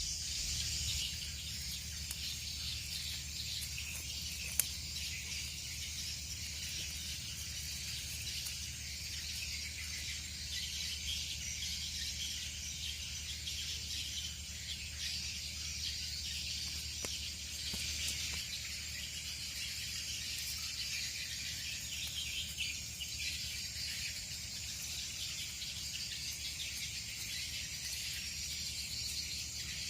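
Steady, unbroken chirring of insects, with one sharp click about four and a half seconds in.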